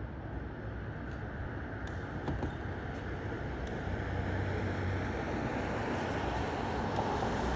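Street traffic noise with a steady low engine hum and a few faint clicks, growing slightly louder toward the end.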